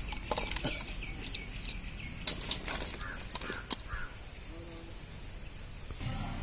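Handling sounds of fried chicken pieces being dropped by hand from a steel bowl onto rice in a large aluminium pot, with a few sharp knocks, the loudest about two and a half seconds in. Birds chirp in the background with short rising calls.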